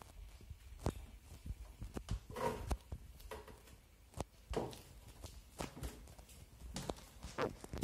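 High-heeled shoes stepping on wooden stairs: a string of sharp heel clicks at an uneven pace, about one or two a second, a few with a short scuff.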